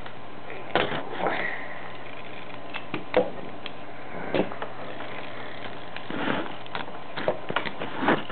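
Handling noise from a Lego toy car and the camera being moved by hand: scattered knocks, clicks and rubs, the sharpest a single click about three seconds in, with a cluster of quick knocks near the end.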